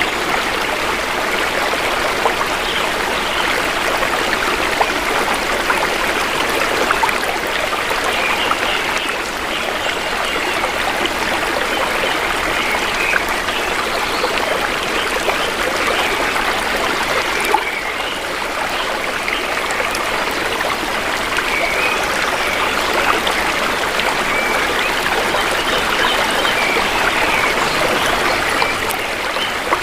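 Shallow river water flowing and trickling steadily, an even rushing wash without breaks.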